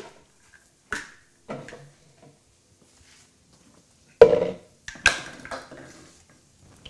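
Kitchenware being handled on a wooden countertop: a few light knocks, then two sharp clunks with a short ring about four and five seconds in, the first the loudest, as a metal soup pot and a plastic blender jar are set down and the jar's lid is taken off.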